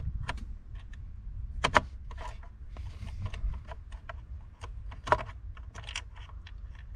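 Irregular light clicks and taps of hand tools on the car's plastic interior trim and fasteners, over a low steady rumble of handling noise.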